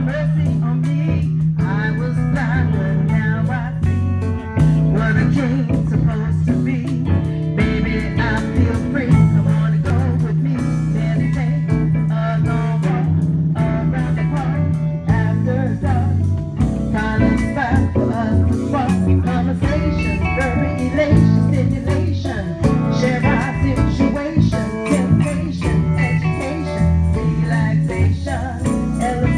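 A live band playing electric guitars over a drum kit and keyboard, with low held bass notes under the guitar lines.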